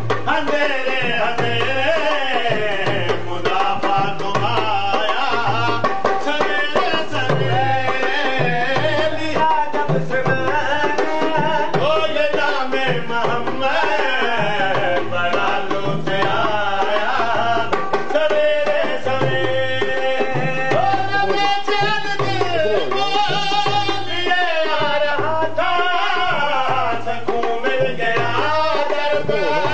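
Two men singing an Urdu naat in full voice, accompanied by a dholak, a two-headed barrel hand drum, beating a steady rhythm.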